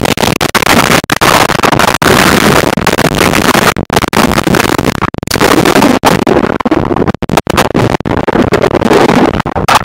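Loud, churning rush of water around a camera microphone going down a natural rock water slide and under the surface, cut by many brief dropouts.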